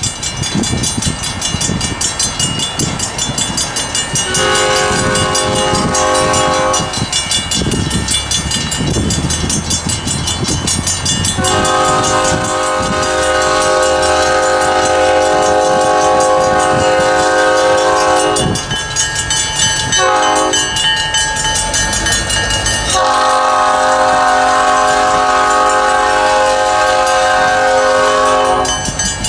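A diesel locomotive's multi-chime air horn, an old cast Nathan P5, blowing the grade-crossing signal: long, long, short, long. Under it runs the steady low rumble of the approaching EMD GP9's engine.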